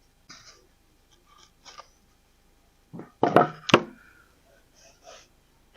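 Plywood drawer parts being handled and fitted: light taps and scrapes, then a few loud wooden knocks about three to four seconds in.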